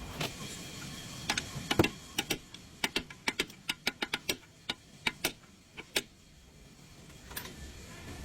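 An uneven series of sharp clicks and light knocks, about twenty of them, bunched most thickly in the middle and thinning out near the end.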